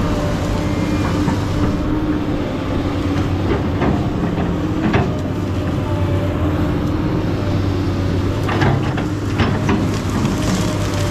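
SANY SY215C excavator's diesel engine running steadily while working, with scattered clanks and knocks, several of them close together about eight to ten seconds in.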